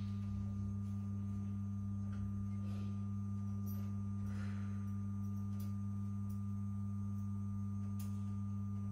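Steady low electrical mains hum, a deep tone with a second one an octave above it, with a few faint clicks.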